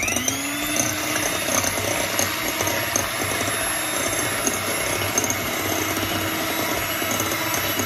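Electric hand mixer beating egg whites in a glass bowl. The motor's pitch rises briefly as it spins up at the start, then it runs steadily while the whites froth.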